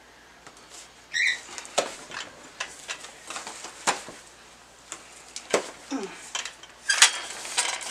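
Scattered clicks, taps and rustles of unboxing: scissors cutting into a cardboard box's packaging and a metal light stand being handled, with a sharper click near the end.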